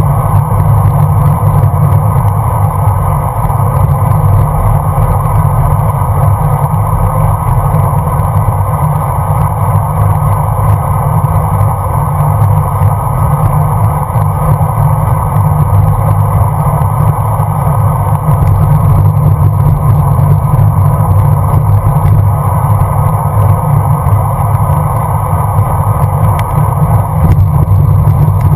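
Loud, steady wind rumble on a bicycle-mounted GoPro camera's microphone while riding along a road.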